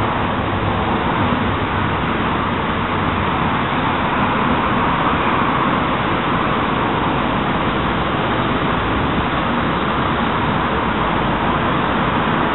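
Steady road traffic noise: a continuous rush of passing vehicles with no distinct events.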